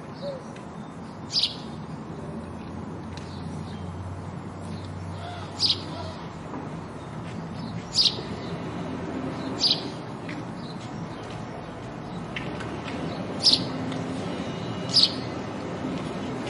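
House sparrow chirping: six single short chirps a few seconds apart, over a steady low background din.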